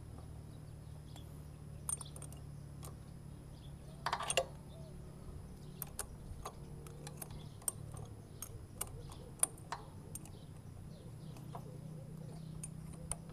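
Scattered metal clicks and clinks of a combination wrench working the bolts of a motorcycle's front sprocket retaining plate as they are tightened, with a brief rattle of clinks about four seconds in. A steady low hum runs underneath.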